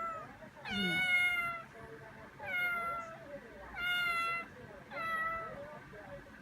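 A young cat meowing repeatedly: four separate meows about a second apart, after the end of one call at the start.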